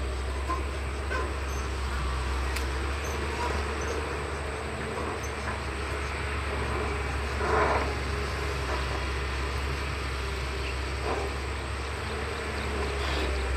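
Caterpillar 320CL long-reach excavator's diesel engine running steadily as it works, with a brief louder noise from the machine about seven and a half seconds in.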